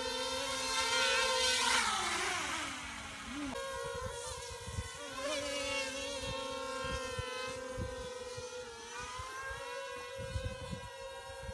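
Quadcopter's electric motors and propellers whining steadily. The pitch glides down about two seconds in, then the whine holds at a steady, slightly wavering pitch while the quadcopter hovers.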